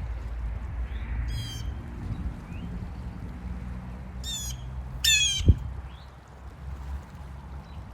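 Blue jay giving three harsh, raspy calls, the last two close together. A sharp thump comes just after the last call, over a low rumble.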